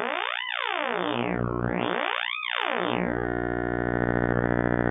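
Make Noise Spectraphon spectral oscillator. Side A is in spectral amplitude modulation (SAM) mode, resynthesizing side B's spectral array oscillator (SAO) output. It plays a steady pitched, harmonic-rich tone whose bright band of harmonics sweeps up and back down twice, then evens out into a level tone for the last couple of seconds.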